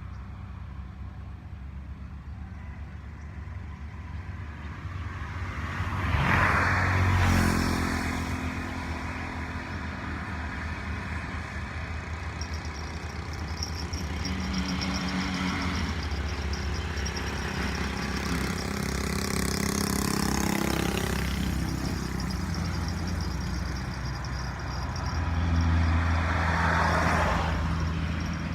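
Motor engines running steadily, with two louder passes, one about six seconds in and one near the end, as vehicles go by.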